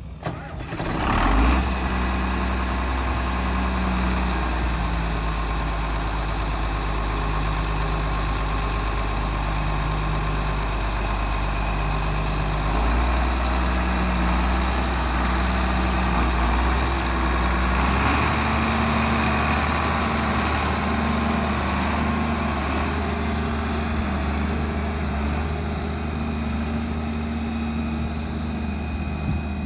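John Deere 4250 tractor's turbocharged six-cylinder diesel engine running steadily, its pitch stepping up just past the middle as the tractor pulls away under more throttle.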